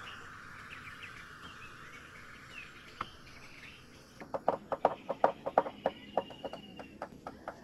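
Insects droning and birds chirping, then from a little past halfway a quick run of sharp knocks, several a second, the loudest sounds here.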